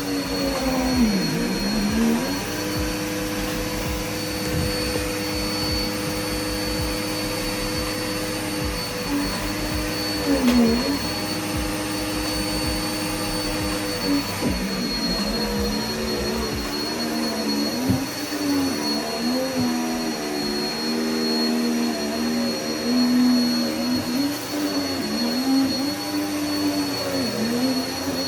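Vacuum cleaner running steadily with a faint high whine. Its motor pitch dips and recovers briefly about a second in and again about ten seconds in, then wavers repeatedly in the second half.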